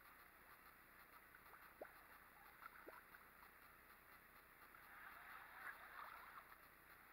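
Near silence: a faint steady hiss of outdoor background, with a couple of small soft ticks about two and three seconds in.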